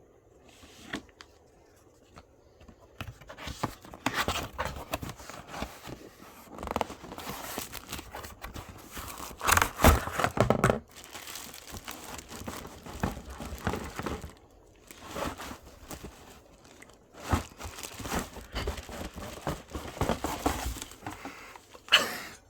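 Fan packaging being handled and pulled open: irregular crinkling and tearing, in uneven bursts, loudest about ten seconds in.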